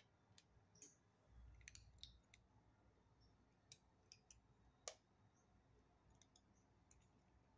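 Kittens crunching dry kibble from plastic bowls: faint, scattered clicks, with a sharper click about five seconds in.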